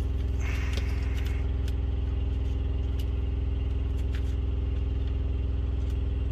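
Steady low hum of an idling engine, typical of the truck's diesel running while parked, with light clicks and a short rustle about half a second in from handling heater parts and wiring.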